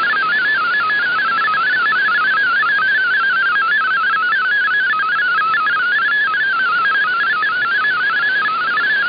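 MFSK32 digital-mode radio signal received on shortwave: a single tone hopping rapidly and continuously among closely spaced pitches, a burbling warble, over steady receiver static. The tones carry text data that decodes as it plays.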